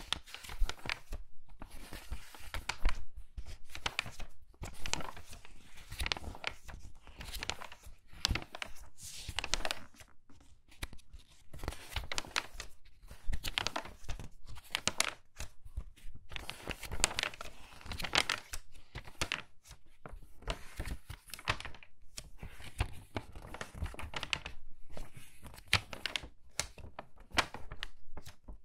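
Pages of a crinkly magazine being turned quickly one after another, each turn a crisp rustling crinkle of paper, roughly one a second.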